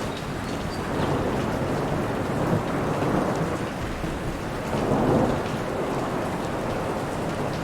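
Steady rainfall pattering onto a lake, a dense continuous hiss, with a low rumble swelling up about five seconds in.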